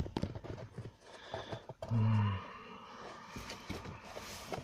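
Scattered light clicks and knocks of hand tools and parts being handled while working on a car's steering column, with a short low hummed grunt about two seconds in.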